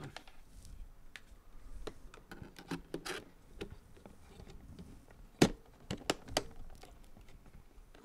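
A RAM stick with a clip-on RGB heat sink being pushed into a motherboard DIMM slot: soft handling rattle, then several sharp clicks about halfway through, the loudest first, as the module seats and the slot's retention latches snap shut.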